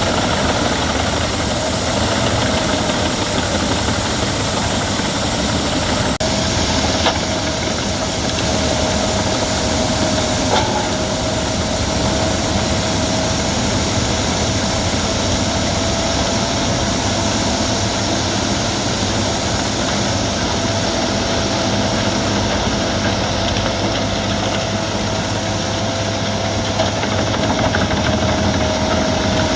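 Albach Diamant 2000 wood chipper running steadily: a constant loud machine noise with a steady whine over it, and a few short knocks about seven and ten seconds in.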